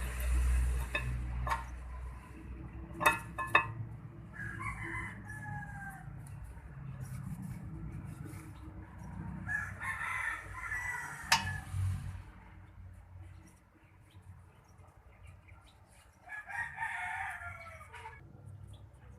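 A rooster crowing three times, each crow about a second and a half long and falling in pitch at the end, with a few sharp clicks in between.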